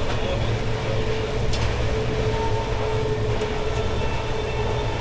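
Express passenger train running at speed, heard from aboard: a steady rumble of wheels on the track, with a faint steady whine and a couple of faint clicks.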